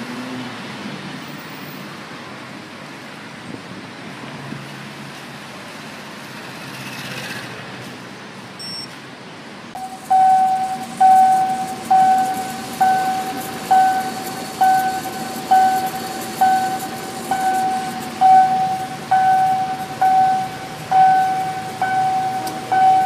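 City street traffic noise at night. From about ten seconds in, a loud electronic beep sounds roughly once a second, each a single short held tone, over the traffic.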